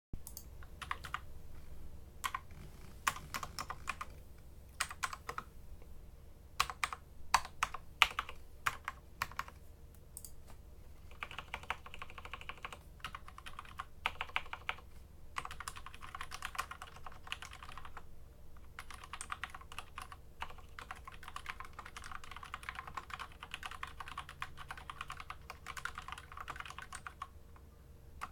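Custom-tuned SteelSeries Apex M500 mechanical keyboard being typed on. It starts with single, spaced-out keystrokes, then from about eleven seconds in moves to stretches of fast continuous typing.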